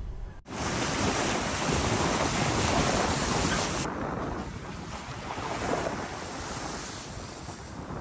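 Wind rushing and buffeting over the microphone as a steady noise. About four seconds in it changes, losing its highest hiss, and goes on as wind rush from a vehicle driving a dirt road with the microphone held out the window.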